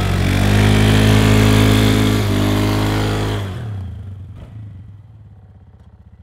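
Polaris 500cc ATV engine revved hard and held high while the quad is stuck in snow. About three and a half seconds in the revs drop away, and the engine falls to a low, fading putter.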